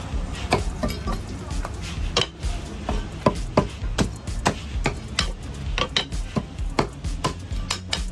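Chinese cleaver chopping roast suckling pig on a thick wooden chopping block: a run of sharp chops, about two a second and unevenly spaced.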